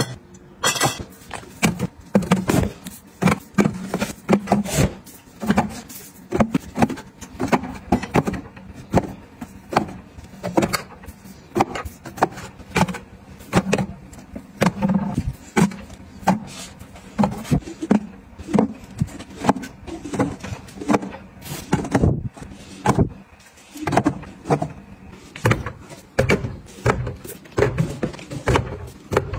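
Drink bottles, glass and then plastic, set down one after another in metal pull-out storage baskets: a run of knocks, taps and clinks, about two a second.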